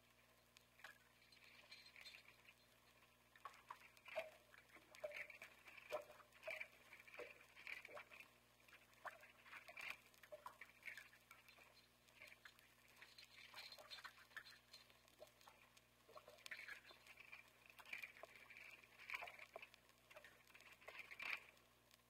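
Faint, irregular patter of small scratches and short high squeaks, a recorded haunted-house sound effect.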